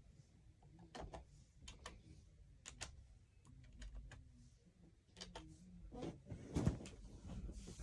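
Faint, scattered clicks and taps of objects being handled, with a louder stretch of knocking and rustling about six to seven seconds in.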